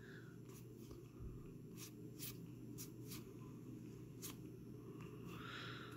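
2020 Topps Series 1 baseball cards being flipped through by hand: faint, soft flicks of card stock, about six over a few seconds, over a low steady hum.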